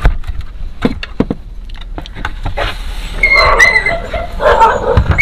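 Screwdriver prying the plastic front panel off an Intex home theater speaker cabinet: scattered clicks and knocks as the clips let go. Two louder, rougher sounds come about three and four and a half seconds in.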